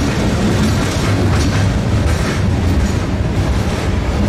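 CSX freight train rolling along the rails: a steady low diesel locomotive drone, with a few wheel clicks on the track.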